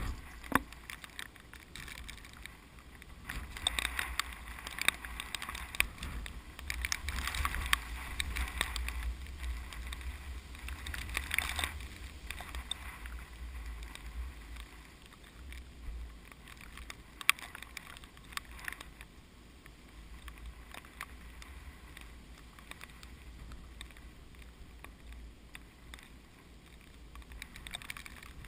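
Strong typhoon wind gusting, rumbling on the microphone, with rustling that swells and fades with the gusts, strongest in the first half.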